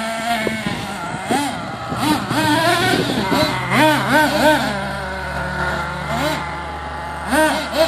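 Small nitro engines of RC monster trucks, one an HPI Savage X, revving up and dropping back in quick blips several times as the trucks drive on dirt. A steadier low engine drone runs under the second half.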